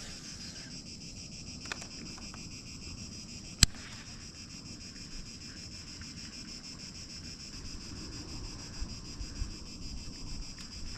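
Steady high-pitched insect chorus, with low wind rumble on the microphone and a single sharp click about three and a half seconds in.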